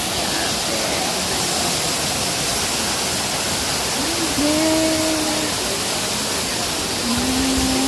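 Powerscourt Waterfall's falling water roaring, a loud, steady rush of noise. Faint voices calling out rise above it about four seconds in and again near the end.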